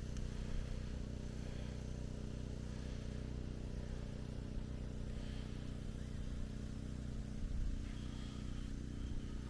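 An engine idling steadily, giving an even low hum that does not change pitch.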